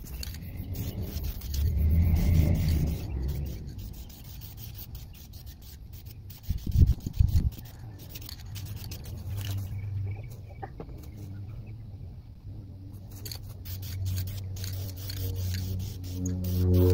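Aerosol spray can of gloss clear coat hissing in short bursts as it is sprayed, with low rumbling on the microphone. A run of musical tones comes in near the end.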